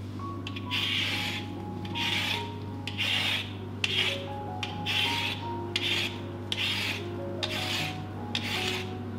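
Y-peeler blade scraping strips of skin off a raw daikon radish, in repeated strokes roughly once a second.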